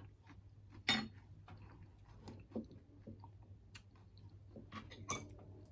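Close-miked chewing and wet mouth clicks of a person eating, with a sharper click about a second in.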